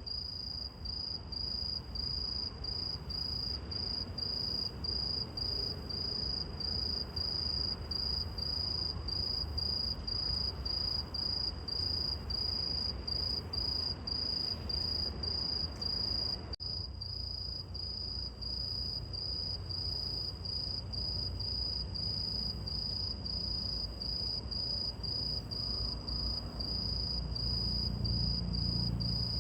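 Bell crickets (suzumushi) singing: one high, ringing tone in steady pulses about twice a second, over a low background rumble.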